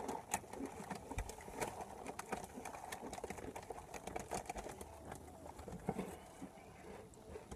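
Plastic chip bag crinkling as it is tipped up to the mouth for the last Takis, with faint crunching of the rolled tortilla chips; a quiet, irregular run of small crackles and clicks.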